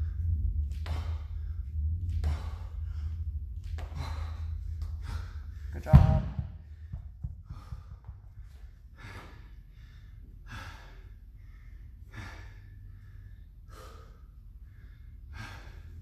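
Hard, heavy breathing, with a gasp or exhalation about once a second, from an athlete catching his breath mid-workout. About six seconds in, a pair of 50-pound hex dumbbells is dropped onto rubber gym flooring with a single loud thud.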